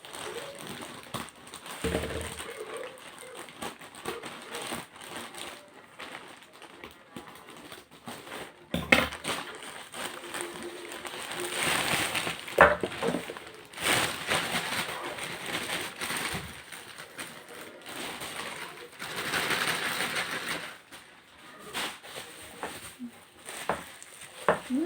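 A parcel being handled and unwrapped: irregular rustling of packaging with a few sharp clicks and knocks, the loudest about nine and twelve seconds in.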